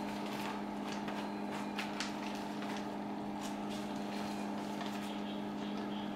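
Steady electrical hum from a powered-on PS-450 impulse band sealer, with light crinkling of a thin plastic film bag being handled.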